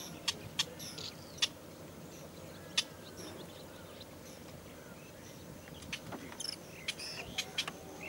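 Wild birds chirping in a wetland: scattered short, high chirps, sparse through the middle and coming thicker near the end, over a steady low background hum.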